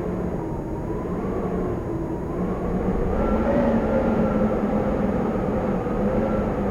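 Howling wind: a steady low rush with whistling tones that waver up and down in pitch, swelling a little louder and higher about three seconds in.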